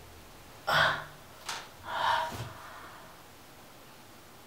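A man's three short breathy vocal sounds, one about a second in and two more close together shortly after, in a small tiled room.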